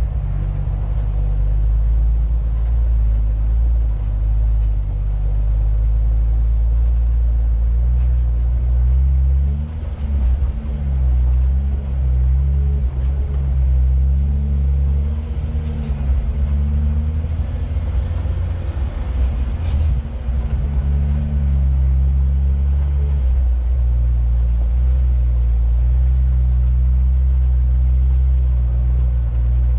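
Off-road 4x4's engine running at low speed on a rough trail, its pitch rising and falling repeatedly as the throttle is worked. A rougher burst of noise comes in about halfway through.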